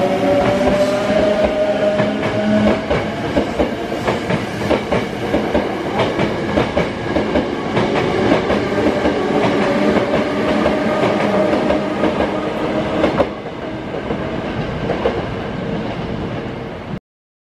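Hankyu 8000-series electric train pulling out and passing close by: a traction-motor whine that climbs slightly over the first couple of seconds and then holds, with wheels clacking over rail joints. The train recedes about 13 seconds in, and the sound cuts off abruptly near the end.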